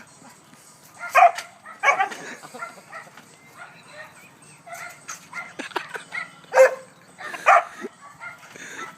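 A dog barking in a string of short separate barks, the loudest about a second in and again around six and a half and seven and a half seconds in.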